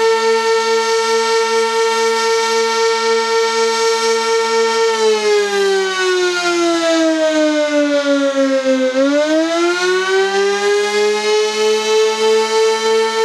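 Sentry 16V-1T-B outdoor warning siren sounding the attack signal: a loud, steady single high tone that swells and fades about once a second. About five seconds in, the pitch slides down for a few seconds, then climbs back up to the full tone.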